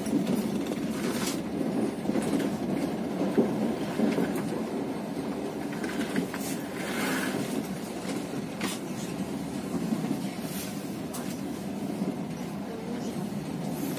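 Passenger train carriage rolling along the track, heard from inside the car: a steady low rumble with irregular sharp clacks of the wheels over the rail joints.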